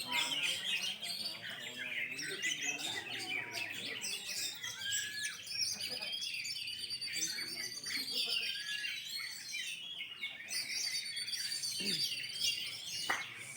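Several caged oriental magpie-robins (kacer) singing at once: a dense chorus of overlapping chirps, whistles and quick phrases, with long held high trills twice.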